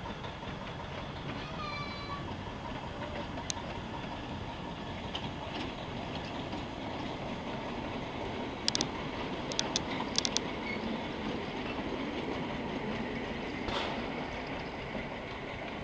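Narrow-gauge steam locomotive running slowly past with its wagon, a steady rumble of wheels on track, with a few sharp clicks about halfway through.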